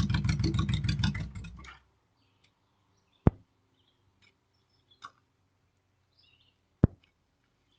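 A small engine running with rapid, even pulses shuts off about a second and a half in. Two sharp clicks follow, one in the middle and one near the end, with faint high chirps between them.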